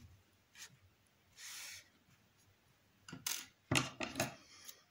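Soft rubbing and rustling of cotton yarn being drawn through a crocheted amigurumi body with a yarn needle, with a cluster of louder handling rustles and light taps in the last two seconds.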